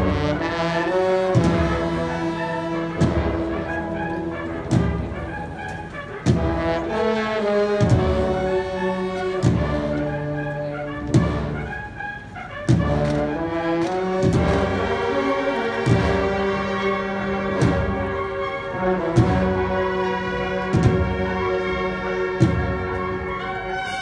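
Cornet and drum band (banda de cornetas y tambores) playing a slow processional march: massed cornets hold loud, shifting chords over a heavy drum beat that falls about every second and a half.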